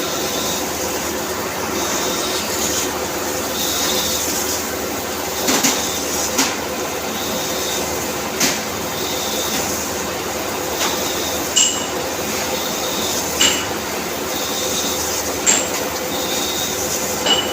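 CNC machine running: a steady mechanical whir, with a short high tone repeating every second or two. From about five seconds in, a sharp click comes every two seconds or so.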